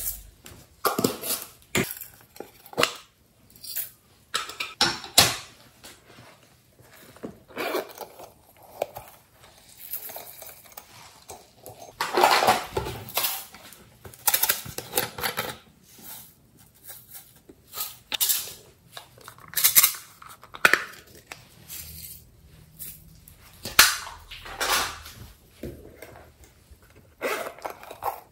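Hands handling plastic toy containers and a plastic bottle: scattered clicks, knocks and rattles as lids are worked and the containers are handled, with short rustling bursts as glitter and sequins are shaken out.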